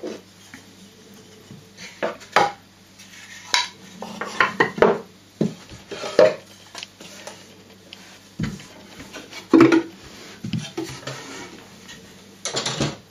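Polished cherry-wood toy parts and case pieces knocking and clattering as they are lifted and set down on a table: a dozen or so separate wooden knocks at irregular intervals, some in quick pairs.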